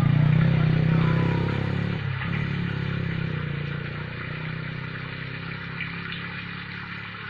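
Small motorcycle engine running as it rides past and away, its low hum fading steadily.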